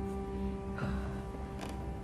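Film score music: a sustained chord of held tones, with a short falling sound just under a second in and a sharp click near the end.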